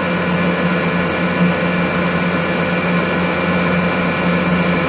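Gardner Denver Electra Screw (EBE99K) electric rotary screw air compressor running steadily under load, pumping up tank pressure: an even hum with a strong low tone and a hiss of air over it.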